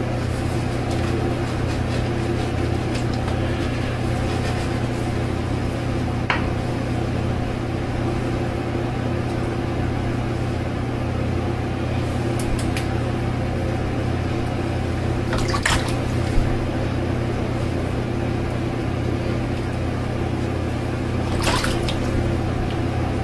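Steady hum of a room air conditioner running, with a few faint clicks.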